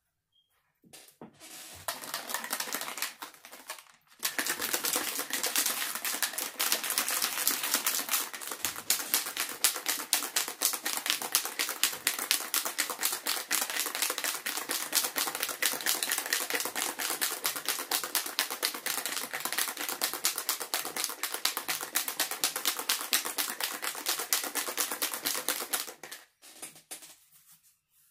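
A plastic bottle of tattoo ink shaken hard by hand to mix the pigment: a fast, even rattle of clicks that starts about two seconds in, breaks briefly, then runs on for about twenty seconds before stopping shortly before the end.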